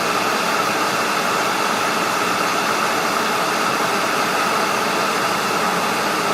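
Kettle heating water: a steady rushing hiss with a faint held tone in it.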